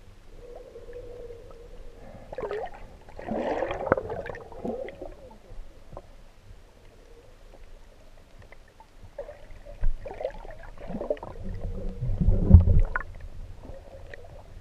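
Muffled underwater gurgling and sloshing, heard through an action camera's waterproof housing, with a faint steady hum and two louder swells, one a few seconds in and one near the end.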